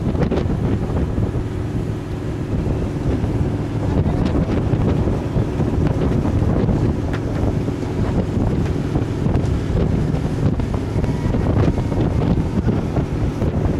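Wind buffeting the microphone aboard a moving boat, a steady loud low rumble, with the boat's engine hum and water underneath.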